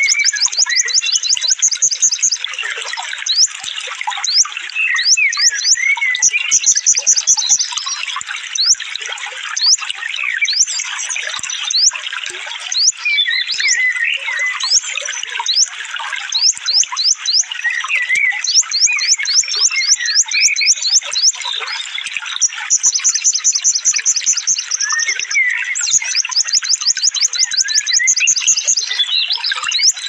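Layered songbird recording for training caged birds (masteran): runs of rapid, high-pitched rising notes repeated in fast trills lasting a second or two, over continuous twittering and chattering calls from several birds.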